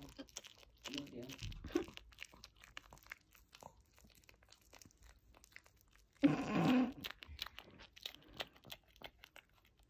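Chihuahua chewing a large marshmallow: irregular wet smacking and clicking mouth sounds.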